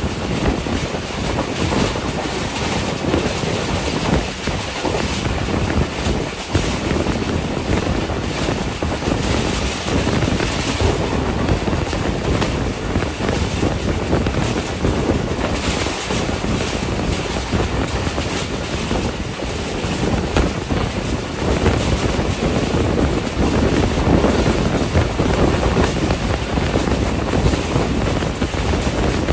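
Passenger train coach running at speed, heard at an open door: a steady rushing of wheel-on-rail rolling noise mixed with wind buffeting the microphone.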